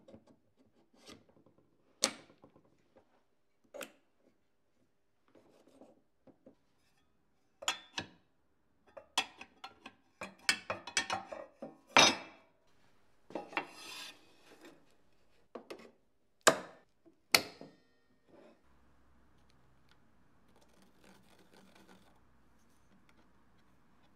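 Hard objects being handled and set down on a workbench: scattered sharp knocks and clicks with bouts of scraping and rubbing, busiest in the middle. A faint steady low hum comes in after about nineteen seconds.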